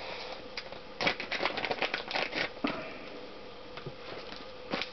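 A clear plastic bag crinkling in the hands as a small water pump seal is unwrapped, with light clicks as the metal seal parts are handled and set down on the workbench. The rustling and clicking come in a quick run about a second in, then die down to quieter handling.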